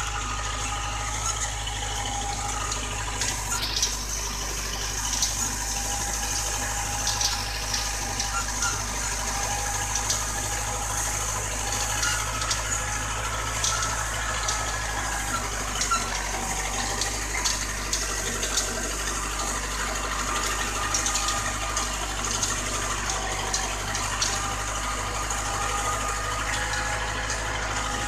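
Zetor 7745 tractor's diesel engine running steadily under load, pulling a three-furrow reversible plough through the soil, with a steady hiss and scattered faint clicks over it.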